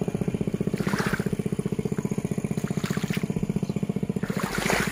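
A small engine running steadily with a fast, even beat. Water splashes briefly about a second in and again near the end, as bare feet wade through shallow muddy water.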